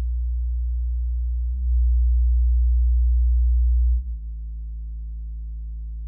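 Low bass test tone, a steady sine of about 55–60 Hz, played through PreSonus Eris E3.5 and E4.5 studio monitors, with faint overtones above it. The level jumps up about a second and a half in and drops again about 4 s in as playback switches between the two speaker pairs and tone steps.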